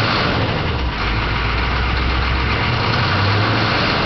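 GM 6.2 L IDI diesel V8 idling steadily, with a tapping from the valve train that the owner thinks is a collapsed lifter, having found excess valve lash on the number 1 exhaust valve.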